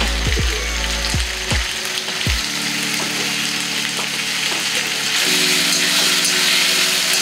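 Sauce-coated soya chunks, onion and green bell pepper sizzling in a hot wok over a gas burner. The sizzle grows louder about five seconds in, as a spatula starts stirring and tossing the food.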